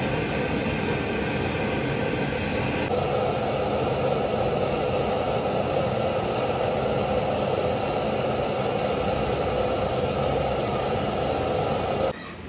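Handheld butane canister torch burning with a steady hiss as its flame heats copper refrigerant pipe joints to join them. The flame sound thickens about three seconds in and cuts off suddenly near the end.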